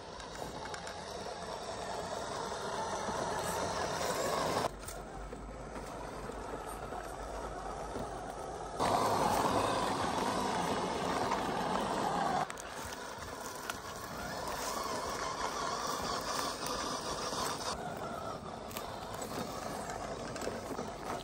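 ZP 1007 RC crawler truck's electric motor and geared drivetrain running as it crawls over loose rock and gravel, with tyres crunching on stones. The sound changes abruptly several times and is loudest for a few seconds around the middle.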